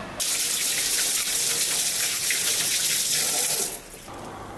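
Running water, a steady stream of about three and a half seconds that starts and stops abruptly.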